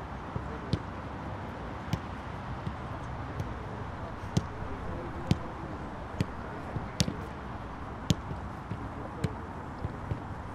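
Sharp thuds of a football being struck and caught in goalkeeper gloves, about a dozen at irregular intervals, roughly one a second, over steady outdoor background noise.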